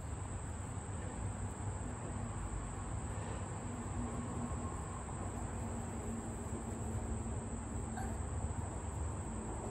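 Steady high-pitched chorus of insects droning without a break, over a low rumble.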